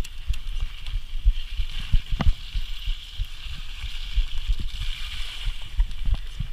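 Mountain bike descending a rough dirt trail: frequent irregular dull knocks and jolts from the bumps, one sharper knock a couple of seconds in, over a steady high hiss.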